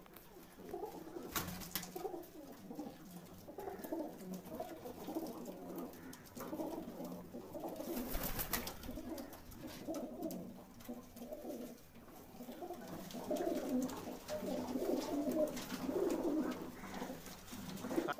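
A flock of Aseel high-flying pigeons cooing continuously in an enclosed loft, many birds overlapping, growing fuller in the second half. A few brief sharp clicks are heard along with it.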